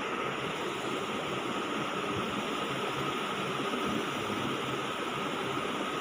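Steady hiss of background noise with a faint high hum, and no distinct events.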